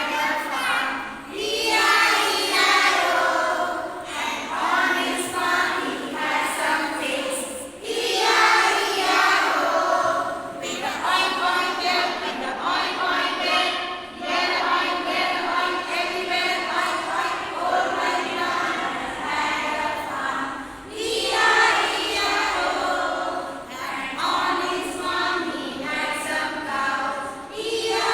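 A choir of high voices singing together in long phrases, with brief pauses between them.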